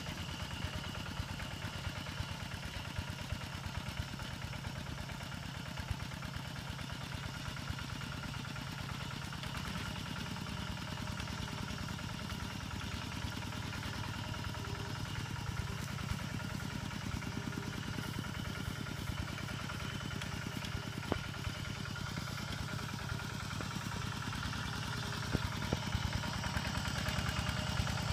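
Two-wheel walking tractor's single-cylinder diesel engine running steadily under load as it pulls a laden trailer, with a fast, even beat, growing louder near the end as it comes closer.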